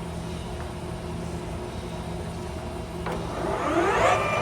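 Clausing Colchester 17 x 80 engine lathe, its main motor humming steadily; about three seconds in a click, then the spindle and headstock gears spin up, a whine rising in pitch for about a second and settling into a steady, louder running whine at the newly selected 495 rpm.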